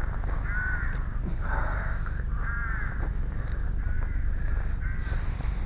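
Crows cawing repeatedly, about five short calls roughly a second apart, over a steady low rumble.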